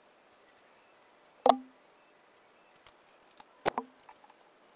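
Two sharp metal clanks about two seconds apart, each with a short ringing tail, as steel pieces knock against a steel workbench; a few lighter clicks fall between them.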